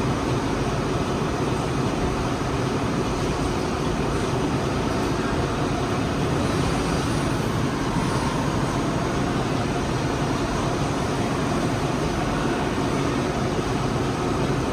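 IMTS TX400 CNC lathe running with a steady, even mechanical noise.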